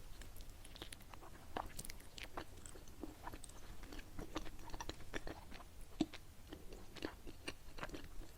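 A person chewing a soft, sticky glutinous-rice qingtuan with a salted egg yolk and taro paste filling, close to the microphone: irregular wet mouth clicks and smacks, one louder click about six seconds in.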